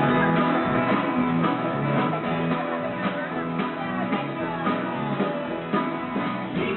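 Small band playing live, led by a strummed acoustic guitar with other instruments joining in, picked up from across the room.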